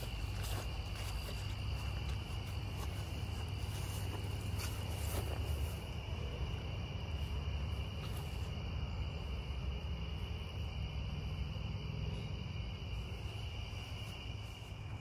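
A steady, high-pitched chorus of crickets over a low rumble on the microphone, with a few soft clicks in the first six seconds.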